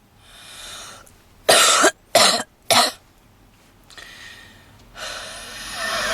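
A woman's smoker's cough: a breath, then three hard coughs in quick succession about a second and a half in. Near the end comes a long, loud wheezing breath.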